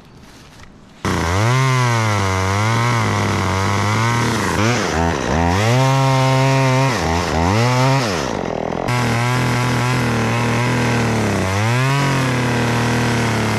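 Two-stroke chainsaw bursts into running about a second in, then revs up and down repeatedly, its pitch rising and falling and dropping low several times. The uneven running is something the operator suspects may be a carburetor or clutch-plate problem.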